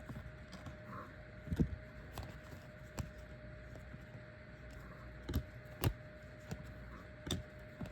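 Trading cards being handled and set down, giving scattered soft taps and clicks, a handful in all, over a faint steady hum.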